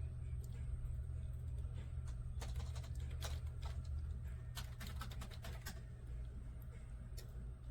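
Spiral water fountain running: a steady low hum under irregular clicks and patters of water splattering and dripping, thickest in the middle.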